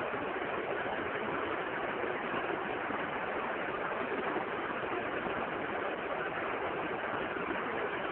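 Stadium crowd noise at a football match: a steady din of many voices with no single voice or event standing out.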